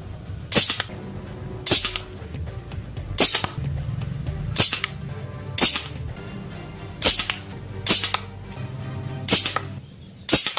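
A PVC toy gun built to look like an FX Impact M3 air rifle, fired about nine times at a second or so apart, each shot a short sharp crack.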